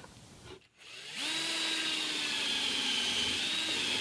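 Power drill boring a hole with a brand-new tapered countersink drill bit in hard white maple. A steady motor whine starts about a second in and stops just after the end.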